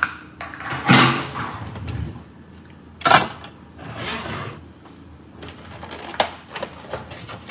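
Large glass mixing bowl being dragged and set down on a smooth glass cooktop: scraping stretches and a few knocks, the sharpest about three seconds in.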